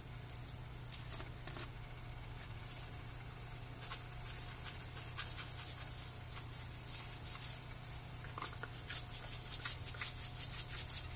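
Spice shaker of dried chopped onion being shaken over a frying pan, its contents rattling in short, quick ticks that come thicker and louder in the last few seconds. A low steady hum runs underneath.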